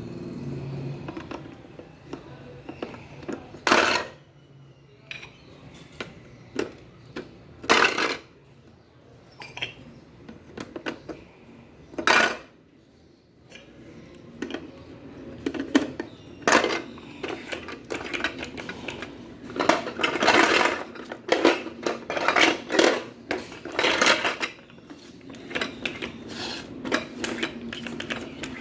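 Hard plastic toy pieces being handled, knocking and clattering: a few separate sharp knocks, then a busier stretch of rattling and clacking in the middle.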